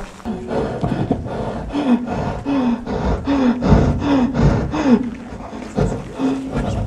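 A man's deep, theatrical laugh: about six separate falling 'ha's, each about two-thirds of a second apart, then one more drawn-out note near the end.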